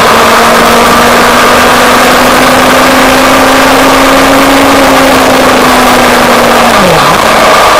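Motorcycle engine running steadily at road speed under a loud rush of wind and road noise. The engine note rises a little, eases back, then dips sharply for a moment about seven seconds in before picking up again.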